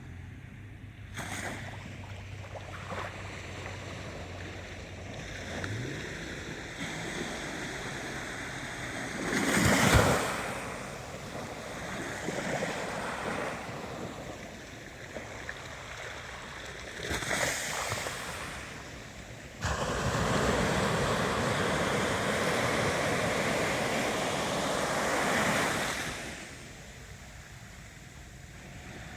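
Ocean waves breaking and washing in: a steady rush of surf with a loud wave about ten seconds in, a smaller one a few seconds later, and a longer, louder wash of water from about twenty to twenty-six seconds. A faint low hum sits under the surf for the first six seconds.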